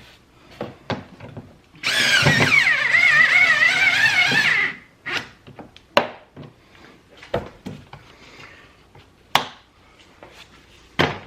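Power drill running for about three seconds, its motor pitch wavering under load as it drives the door panel screws home after they were started by hand. It is followed by scattered sharp clicks and knocks.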